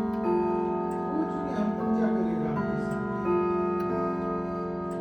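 Grandfather clock chiming a melody: one note is struck about every second and a half, and each note rings on over the others, with faint ticking underneath.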